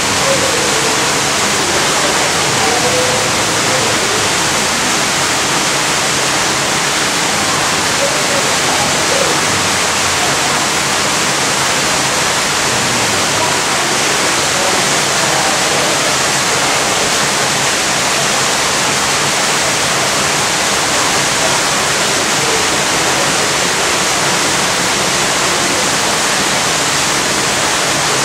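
Steady, even rushing noise, unbroken and at a constant level.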